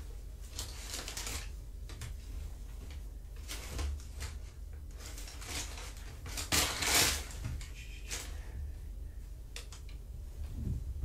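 Paper rustling and crinkling in irregular bursts as kittens bat at it and pounce on it, with a louder crumpling flurry a little past the middle. A steady low hum lies underneath.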